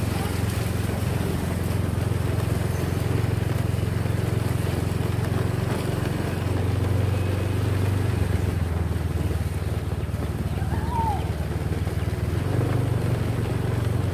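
Small motorcycle engine running steadily as it is ridden along, a low even hum whose note shifts slightly a few times.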